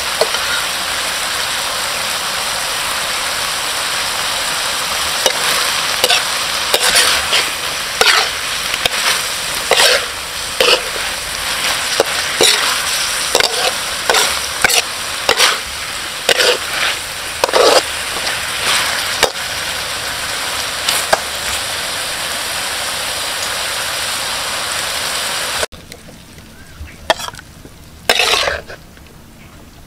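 Chicken offal frying with a steady sizzle in a pan while it is stirred, the utensil scraping through it in repeated strokes. Near the end the sizzle stops abruptly, and a few short scrapes follow.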